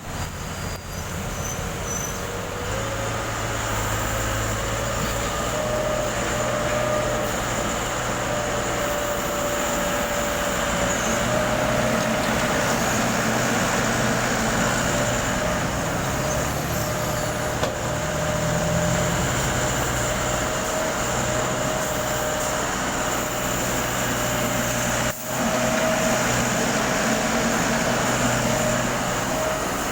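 Backhoe engine running steadily under work, with a thin steady whine above the engine note and a momentary dip in level near the end.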